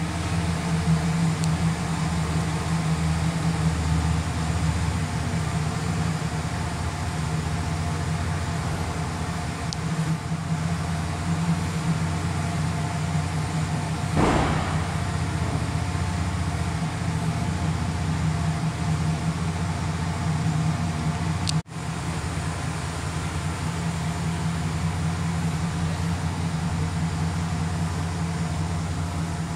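2009 GMC Sierra 1500 pickup's engine idling, a steady low hum. There is a brief rushing noise about halfway through, and the sound cuts out for an instant later on.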